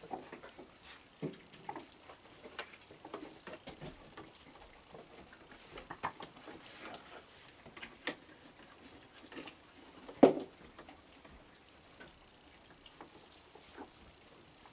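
Raccoons eating kibble off a wooden deck: scattered small clicks, taps and chewing, with one sharp knock about ten seconds in.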